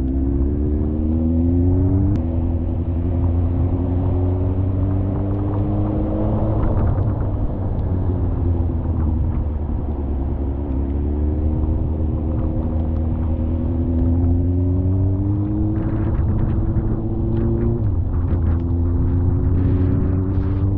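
Motorcycle engine pulling in gear, its pitch climbing as it accelerates and dropping sharply at an upshift about two seconds in. It eases off and falls in pitch midway, then climbs steadily again to a second upshift about three seconds from the end, over a steady low rumble.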